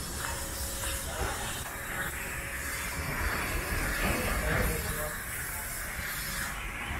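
Steady hissing outdoor background noise.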